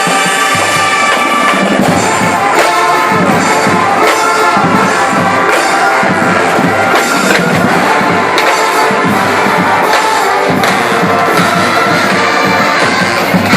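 A drum and bugle corps playing: brass horns hold sustained notes over marching drums that strike in a steady rhythm.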